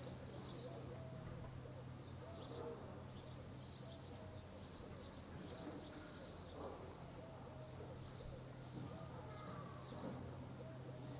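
Faint outdoor ambience of small birds chirping in short, high, repeated bursts, over a steady low hum.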